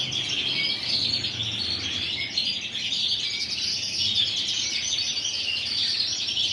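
A roomful of canaries singing and chirping at once: a dense, continuous chorus of high trills and chirps.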